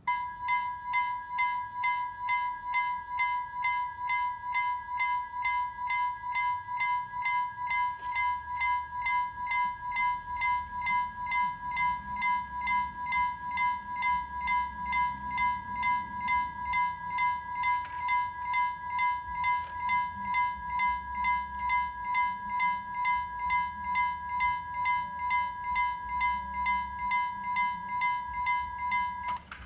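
Norwegian level-crossing warning bell ringing in rapid, evenly repeated metallic strokes, warning of an approaching train as the barriers lower. It cuts off abruptly near the end.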